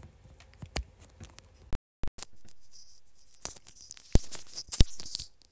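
Handling noise of wired earphones being plugged into a phone and fitted: sharp clicks and rubbing close on the microphone. The sound cuts out briefly about two seconds in, and a high hiss with more clicks follows.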